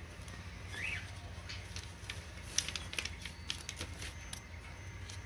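Light clicks and taps of balsa wood pieces being handled and fitted into a model airplane fuselage frame, over a low steady hum, with a brief chirp about a second in.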